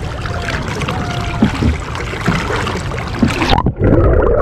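River water splashing and sloshing right against an action camera held at the waterline beside a rowboat. About three and a half seconds in, the camera goes under: the sound cuts to a muffled, louder underwater rumble with bubbling.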